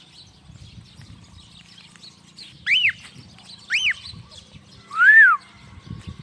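Three loud whistles, each a quick rise and fall in pitch. They start a little under three seconds in and come about a second apart, the third lower and longer. Faint chirping of small birds runs behind them.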